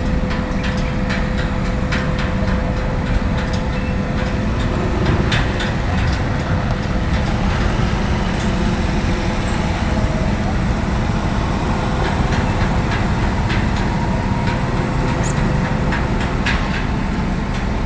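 Heavy construction machinery running steadily, with a steady whine that fades out near the end and scattered clicks and clanks.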